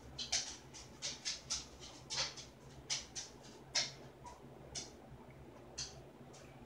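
Person chewing a mouthful of canned whole black beans: a run of short chewing sounds, about two a second.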